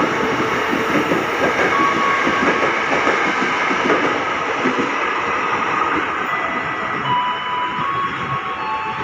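KRL commuter electric multiple unit running past along the platform, wheels clattering over the rails, fading slowly as its last cars go by. A few short high tones sound near the end.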